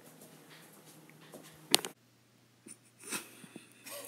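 Quiet room tone broken by a single sharp knock about halfway through. A man starts laughing near the end.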